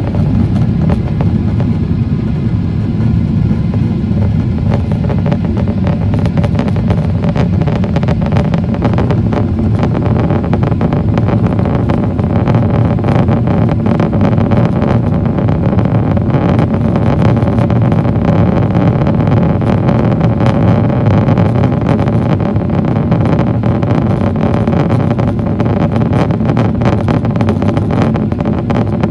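Steady low roar inside the cabin of a Boeing 777-300ER in flight: its GE90-115B turbofans and the airflow past the fuselage, with a faint steady hum above the roar.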